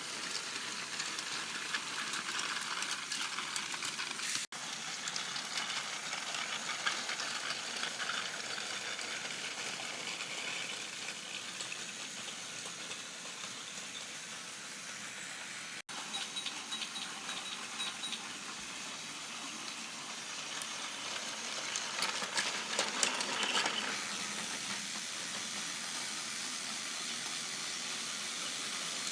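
Battery-powered Trackmaster toy engine running along plastic track: a steady high whir of its small motor with the rattle of wheels and trucks. It grows louder and clickier for a couple of seconds about three quarters of the way through.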